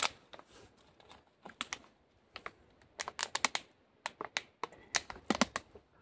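Gear being handled by hand: an irregular run of sharp clicks and crinkles, bunched in short clusters.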